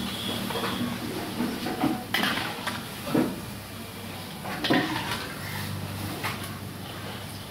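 Large perforated metal ladle knocking and scraping against an iron kadai as small kaja pastries are stirred in sugar syrup, with a handful of irregular metallic knocks.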